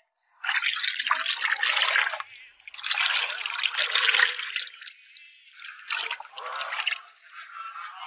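Liquid rendered pork lard poured from a metal ladle into an earthenware crock of fried pork pieces, splashing and trickling in three pours of about a second and a half each, then fainter near the end.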